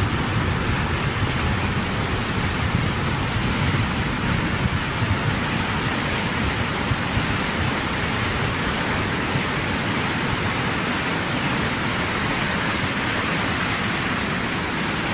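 Floodwater rushing past: a steady, unbroken noise of fast-moving water.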